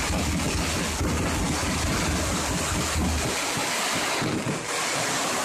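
Aerial fireworks going off in a dense barrage, the explosions running together into a continuous roar, with a deep rumble that eases off about three seconds in.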